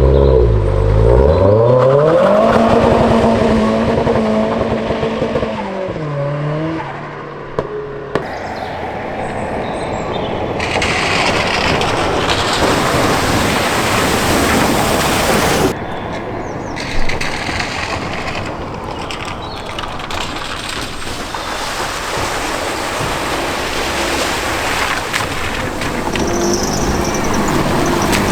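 Cars crossing a flooded river ford. First an engine revs, holds a steady pitch and then drops away. Then comes a long, loud rush of splashing water that cuts off abruptly partway through, followed by more continuous water noise.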